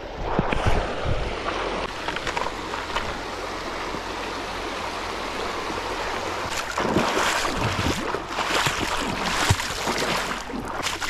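A shallow river running fast over stones, a steady rush of water, with louder splashing from about six and a half seconds in.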